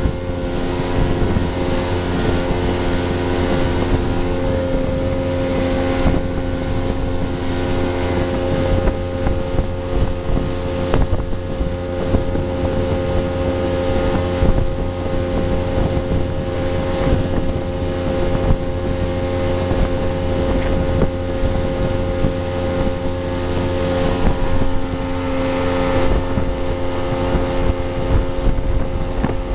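Motorboat engine running steadily under way, an even drone with the rush of water and wind buffeting the microphone.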